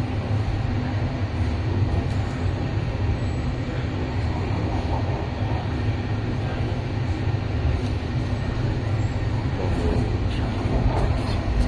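MTR East Rail Line electric train running, heard from inside the carriage: a steady low rumble of wheels on the track, with a few faint clicks near the end.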